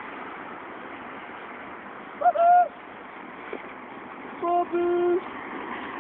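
Car horns honking: a higher-pitched double toot about two seconds in, then a lower double toot near five seconds, over steady traffic noise.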